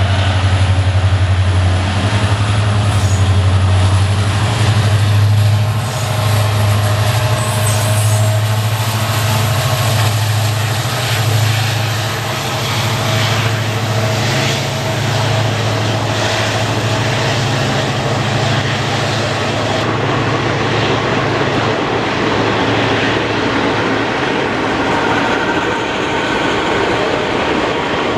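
EMD diesel locomotive's engine humming with a steady low drone as the train passes, a thin high whine above it. After about twenty seconds the engine hum fades and the coaches roll on.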